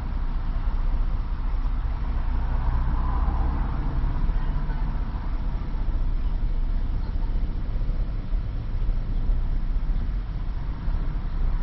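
Car engine idling steadily, a low, even rumble with background hum.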